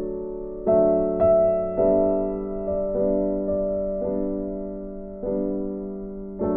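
Slow piano music: sustained chords, each struck and left to ring and fade before the next, about one a second.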